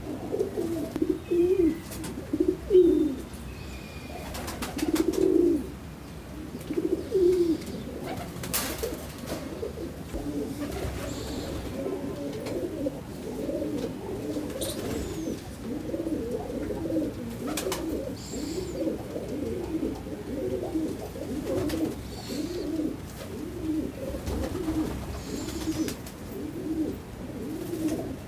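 A loft of domestic pigeons cooing continuously, many birds overlapping, with several louder coos in the first few seconds. A few light clicks are heard along with the coos.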